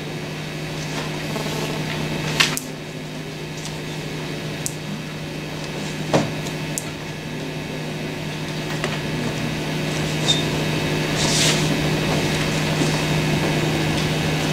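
A steady low electrical hum with room noise, under the faint scratching and tapping of a marker writing on a whiteboard. There are small knocks about two and six seconds in, and a louder scratchy stroke about three-quarters of the way through.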